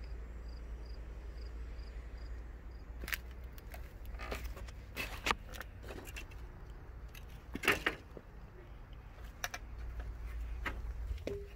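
A steady low hum with a faint, regular high chirp for the first few seconds, then a scattering of sharp clicks and knocks, the loudest about five and eight seconds in.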